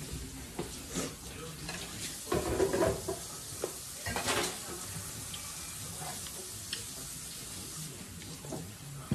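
Eating at a dinner table: a fork scraping and clinking on a plate, with scattered small clicks and a louder clatter of handling about two and a half seconds in.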